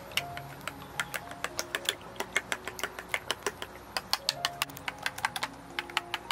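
Metal spoon clinking against a ceramic bowl while eggs are beaten, several quick, uneven clinks a second, over soft background music.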